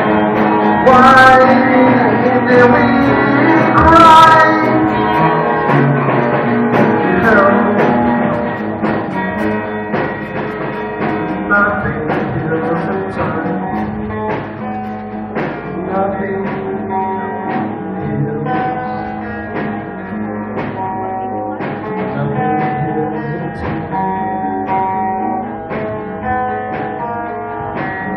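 Live rock band playing: a male voice sings over electric guitar and drums for the first several seconds, then the singing stops about eight seconds in and the guitar and drums carry on more quietly as an instrumental passage.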